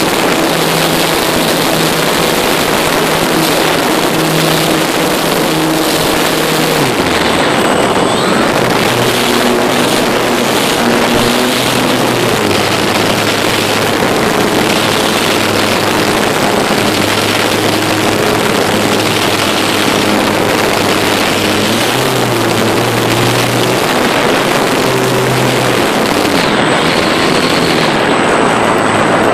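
On-board sound from a Multiplex Gemini RC plane in flight: a loud rush of wind over the phone's microphone under the steady hum of the twin electric motors. The motor pitch steps down and up several times as the throttle changes.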